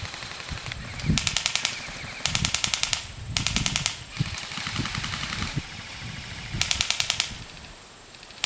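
Airsoft guns firing short full-auto bursts: four bursts of rapid, evenly spaced clicking shots, each about half a second long, the last about two-thirds of the way through.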